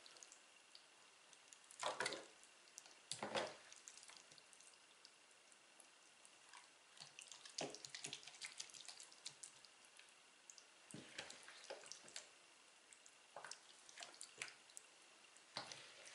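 Faint, wet plops and light scrapes of a ladle scooping a potato, onion and egg-sour cream mixture out of a plastic bowl and spooning it into a metal loaf tin. They come in short separate bursts a second or a few seconds apart.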